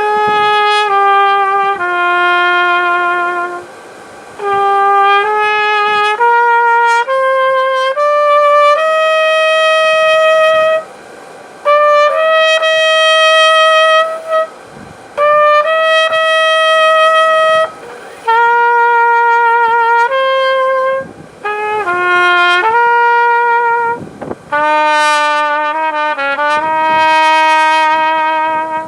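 A solo melody on a single wind instrument. It plays one sustained note at a time with a slight vibrato, in slow phrases with short breaks between them. Near the end it holds a long, lower note.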